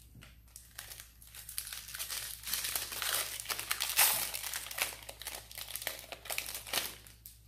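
Magic: The Gathering collector booster pack wrapper crinkling and being torn open by hand. The crackle builds over the first couple of seconds and is loudest about four seconds in, then goes on more loosely as the wrapper is peeled back, and dies away near the end.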